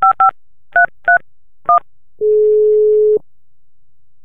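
Telephone keypad tones: five short two-note dialing beeps, the first two close together, then about two seconds in a single steady low ringback tone lasting about a second as the dialed line rings.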